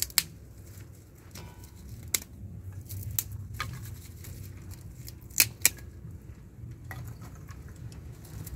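Dry kindling twigs snapping as they are broken by hand: a handful of sharp, short cracks at irregular intervals, two of the loudest close together about five and a half seconds in, over a low steady rumble.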